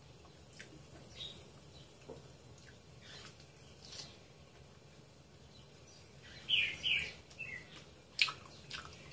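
Mouth sounds of someone eating spicy chicken feet: soft chewing and lip-smacking clicks, with a couple of short high-pitched squeaky sucks about two-thirds of the way in and a sharp click near the end.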